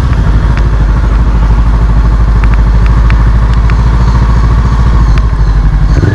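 Honda CB500X's parallel-twin engine running at low road speed, heard from the bike's own handlebars as a steady low pulsing, with a few light ticks and a short falling whine near the end.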